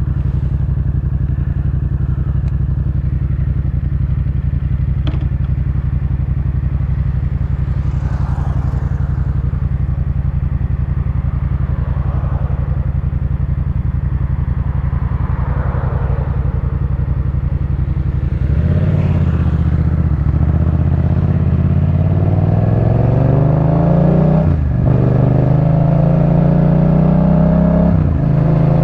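Yamaha MT-07's parallel-twin engine through a Jeskap K4 full exhaust, running steadily at low, even revs. About 18 seconds in it pulls away, the pitch climbing as it accelerates, with a brief drop near the end twice as it shifts up a gear.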